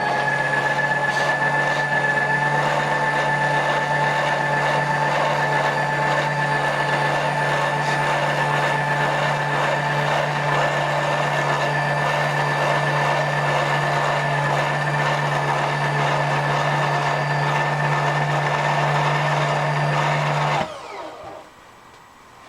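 Milling machine's electric table-lift motor raising the table: a steady motor whine and hum that winds down and stops about 20 seconds in.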